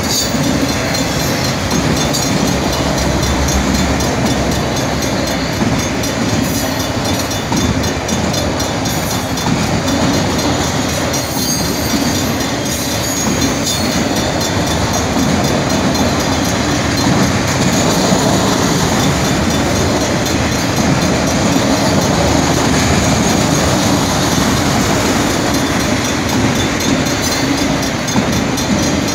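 A train's cars rolling steadily past at a road crossing, a loud, continuous rumble and rattle of wheels on rail.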